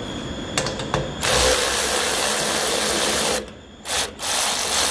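Cordless battery ratchet running a bolt out of a pneumatic valve bracket: a couple of clicks as the socket goes onto the bolt, then the ratchet's motor whirring for about two seconds, a short blip, and a second run near the end.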